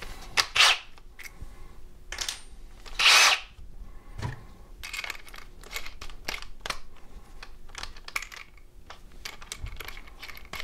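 Small metallic clicks and clinks from a countersink drill bit being fitted into a cordless drill's chuck and adjusted by hand. The clicks come thicker in the second half, with a couple of short rasping bursts earlier on.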